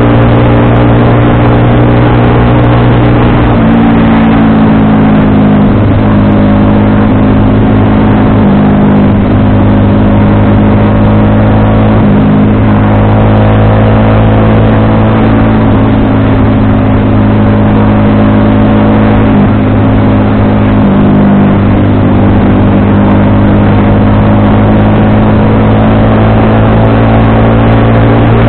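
FKM Victorino 250i V-twin motorcycle engine running steadily while riding, its pitch dipping briefly a few times as the throttle eases and picks up again.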